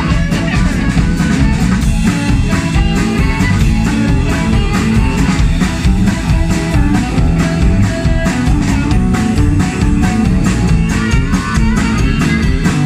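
Live electric blues band playing an instrumental passage: harmonica over electric guitar, electric bass and a drum kit keeping a steady beat.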